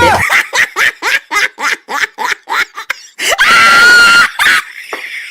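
High-pitched laughter in quick, even bursts, about four a second, followed by a shrill held scream about a second long, then a last short burst or two.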